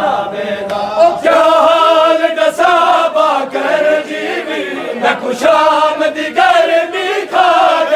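Men chanting a Punjabi noha, a Shia mourning lament, together in a slow melodic unison, with a couple of sharp knocks in the middle.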